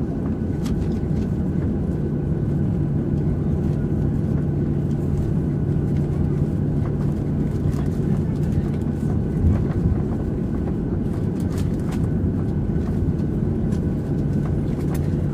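Inside the cabin of a Boeing 737-700 taxiing after landing: the CFM56-7B engines run at idle as a steady low hum with a held tone, with faint clicks and rattles now and then.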